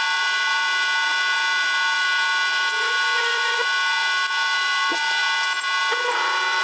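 Vintage lathe running at reduced speed with a steady high-pitched whine while a large twist drill bores into the spinning nylon bar. Faint brief squeals from the cut come a few times.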